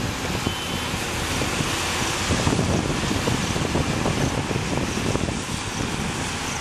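Indian Railways WAM-4 electric locomotive and its coaches running past at speed, a steady rumble, a little louder about two and a half seconds in. Rain hiss and wind buffeting the microphone run over it.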